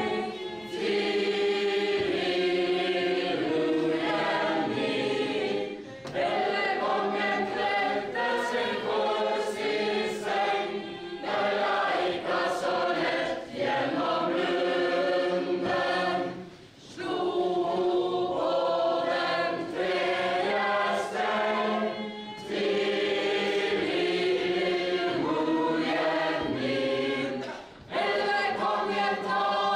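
A crowd of dancers, men and women together, singing a Norwegian medieval ballad unaccompanied as they dance a chain ballad dance (stordans). The sung lines run on with short breaks about every five or six seconds.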